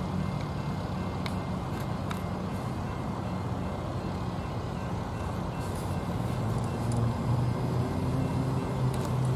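Diesel engine of an approaching GE ES44AC freight locomotive, a V12, running with a steady low drone that grows louder and shifts in pitch about seven seconds in.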